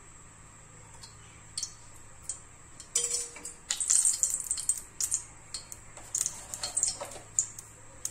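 Cooking oil heating in an aluminium pan, crackling and popping in irregular short pops from about three seconds in until near the end, loudest around four seconds.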